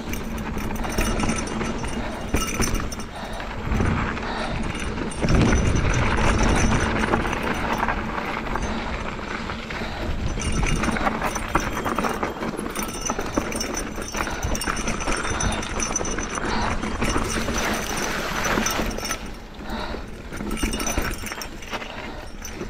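Single-speed mountain bike rolling fast down a rocky dirt trail: tyres crunching over dirt and stones, with the bike rattling and clattering over the bumps, rougher and louder about five seconds in.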